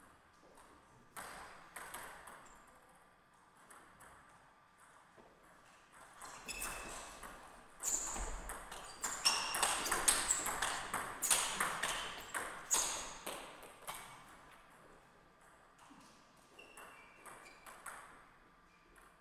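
Table tennis ball clicking off the bats and the table: a couple of bounces about a second in, then a fast rally of hits and bounces from about six to fourteen seconds in, with the point won near the end of the rally.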